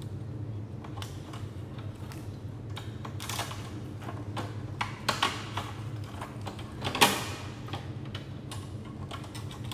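Scattered small clicks and handling noises of hands fitting flat ribbon cables and connectors on a Canon iR copier's scanner circuit board, with one sharp click about seven seconds in. A steady low hum runs underneath.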